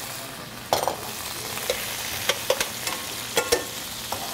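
Shrimp and bay scallops sizzling in hot olive oil in a sauté pan, with a few sharp clinks of a utensil against the pan as they are stirred.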